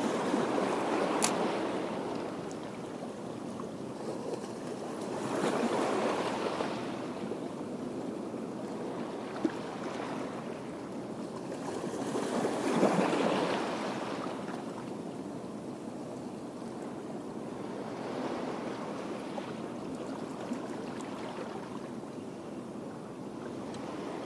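Small sea waves washing in and out over the rocks of a breakwater, a steady wash that swells louder three times as sets of waves come in.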